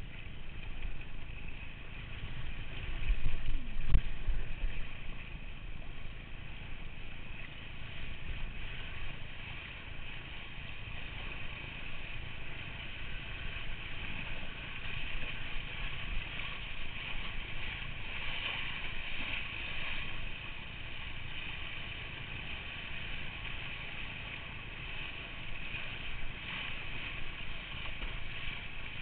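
Rushing water and spray from a windsurf board planing across choppy water, with wind buffeting the board-mounted microphone. A louder, low surge of buffeting comes about three to four seconds in.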